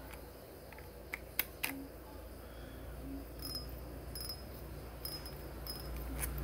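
A few sharp clicks, then light scattered ticks, from a spinning fishing reel as its spool is pushed back onto the shaft and handled.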